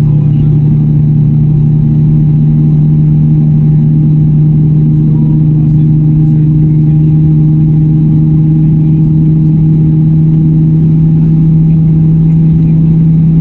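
Airbus A320neo's turbofan engines heard inside the cabin: a loud, steady low drone whose pitch creeps slightly upward, over a rumble.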